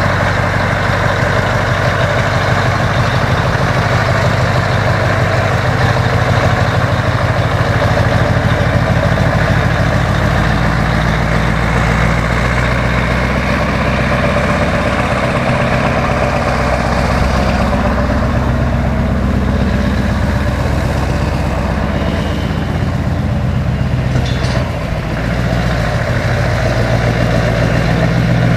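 Scania 460 tractor unit's V8 diesel with a loud exhaust pipe, running at a low idle as the truck moves slowly. Its note shifts slightly about ten seconds in and dips briefly near the end.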